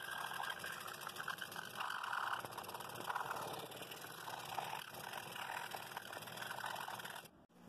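Scroll saw running, its blade moving rapidly up and down as it cuts wooden slats along a paper pattern. The cutting sound rises and falls as the board is fed into the blade, and it stops suddenly near the end.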